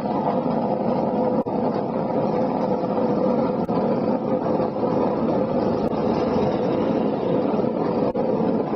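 Wheels of a gravity-powered downhill tricycle rolling fast on asphalt: a steady rumble of road noise with a constant hum running under it, and a faint sharp tick about every two seconds.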